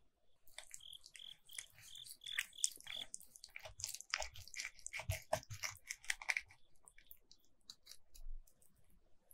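A metal knife and a wooden chopstick cutting into a sauce-glazed sea cucumber stuffed with minced shrimp and beef, making a string of small sticky, crunchy cutting and clicking sounds. The sounds are busiest in the middle and thin out near the end.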